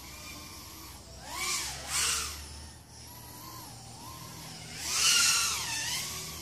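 Whine of a 3-inch 4S FPV racing quadcopter's BrotherHobby 1407 4100kv brushless motors and Gemfan 3052 props, the pitch rising and falling with throttle. There are louder surges about a second and a half in, at two seconds, and around five seconds.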